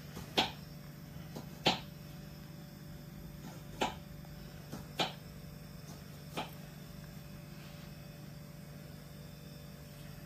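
A steady low hum with several short, sharp clicks or crackles spread through the first six or seven seconds, the two loudest within the first two seconds.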